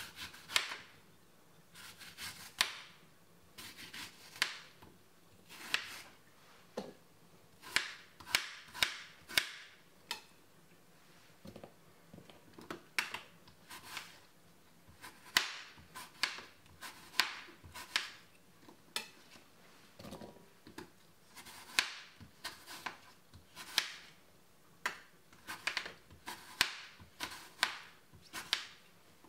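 Kitchen knife cutting a pear into small pieces on a chopping board: irregular sharp chops, often in quick runs of several, with short gaps between runs.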